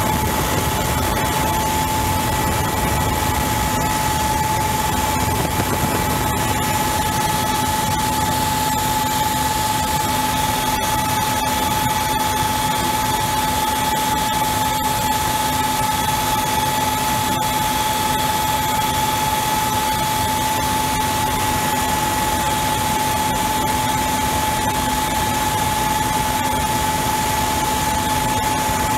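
Mil Mi-35M attack helicopter in steady cruise flight, heard from on board: a constant turbine whine from its twin turboshaft engines over an even rushing of rotor and airflow noise.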